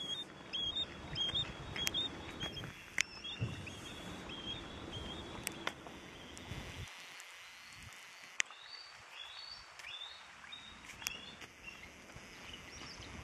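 Bald eagles calling: a long series of short, high piping notes, repeated several times a second, with a few sharp clicks between them. A low rumble underneath drops away about halfway through.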